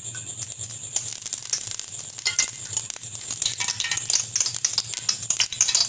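Cooking oil being poured into a steel pressure cooker pot, with a steady crackling sizzle of many small clicks as the oil spreads over the hot metal.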